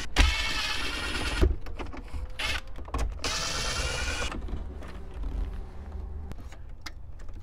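Ridgid 18V cordless driver running twice in short bursts, each about a second long, backing out the 7 mm screws that hold the radio in the dash. Then light plastic clicks and rattles as the radio is pulled loose.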